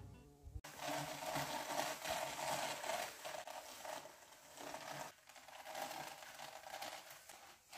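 Hand-cranked drum carder turning, its wire-toothed drums scratching through wool as it is fed in: a steady scratchy rustle with a couple of brief breaks.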